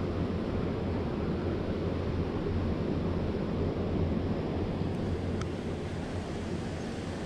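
Steady rushing noise of a river's flowing water, even and unbroken, with a faint tick or two about five seconds in.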